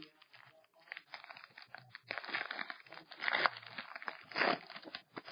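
Shiny foil wrapper of a Topps Finest baseball card pack being torn open and crinkled by hand. A run of crackling starts about a second in, with a few louder crinkles spread through it.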